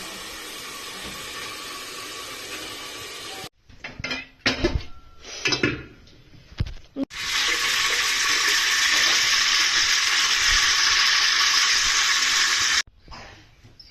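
Oil sizzling steadily in a pan, then a few knocks and clatters of kitchen utensils. After that, water rushes steadily for about six seconds, louder than the frying, and stops abruptly.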